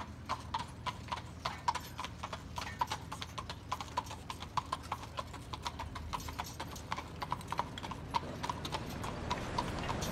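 A carriage horse's hooves clip-clopping at a walk on the paved street, an even run of about four strikes a second.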